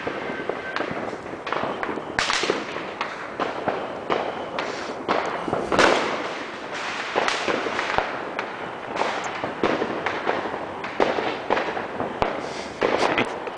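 Fireworks and firecrackers going off all around at once: a near-constant crackle of overlapping pops and bangs, the loudest bang about six seconds in.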